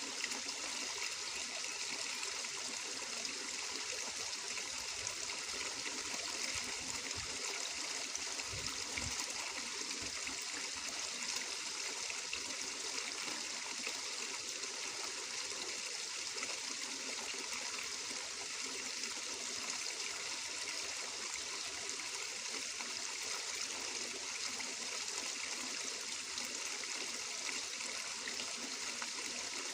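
Flowing water trickling steadily, a hiss that holds an even level throughout. A few faint low thuds come about eight to ten seconds in.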